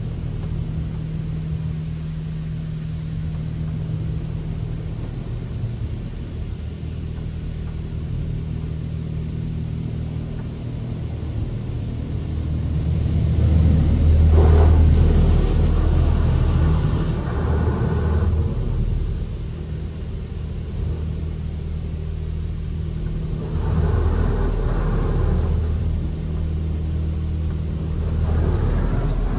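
Touchless Laserwash 4000 car wash rinsing the car with high-pressure water jets, heard from inside the car. A steady low hum runs underneath. The spray swells loudly as the jets sweep over, about halfway through, again a few seconds later, and briefly near the end.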